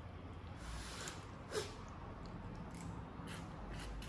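Quiet eating sounds from a bowl of noodles being picked at with chopsticks: a few faint soft clicks and a short soft noise about one and a half seconds in, over a low steady room hum.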